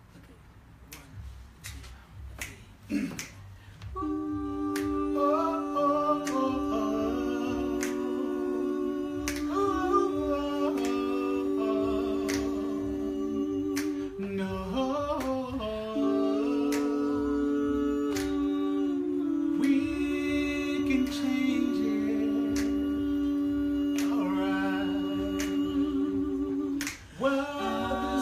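Finger snaps keep a steady beat. About four seconds in, unaccompanied voices come in, singing long held notes in harmony, and they break off briefly near the end before carrying on.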